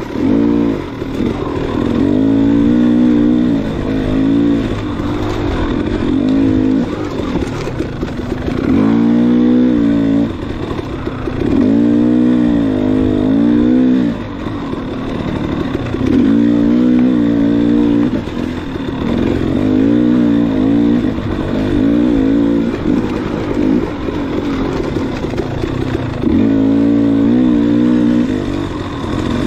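Enduro dirt bike engine revving up and easing off over and over as the rider works the throttle, its pitch rising and falling every few seconds.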